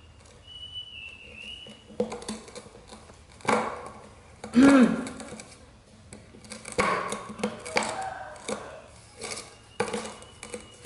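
A baby monkey handling a milk powder tin, making scattered knocks, taps and scrapes as it grabs and paws at the can. There is a short vocal sound about four and a half seconds in.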